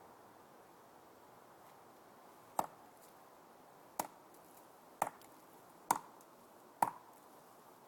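Tree knocks: a hard object struck sharply against a tree trunk five times, roughly a second apart. Each knock has a short rebound right after it.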